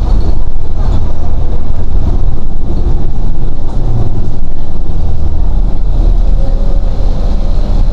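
Inside a Transjakarta city bus on the move: the steady low rumble of its engine and tyres on the road fills the cabin.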